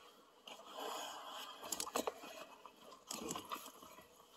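Fabric and packing rustling and scraping as vintage clothing is handled, with a few sharp clicks.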